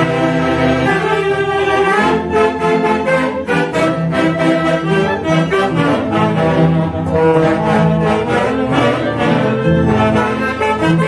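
Andean orquesta típica playing a tunantada, led by a section of saxophones and clarinets in unison melody over a steady dance rhythm.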